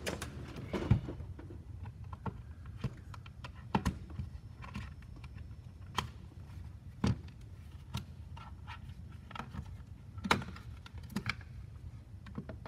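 Scattered plastic clicks, taps and knocks as a ToolKitRC M4Q charger's plastic case is handled and prised open by hand, over a low steady hum.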